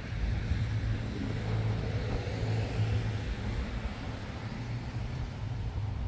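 A motor vehicle's engine runs close by as a steady low hum over street traffic noise, easing off a little after about four seconds.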